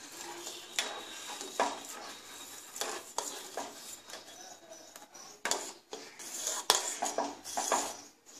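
Steel ladle scraping and clinking against the sides and bottom of a stainless steel pot as thickening custard is stirred continuously, in irregular knocks and scrapes.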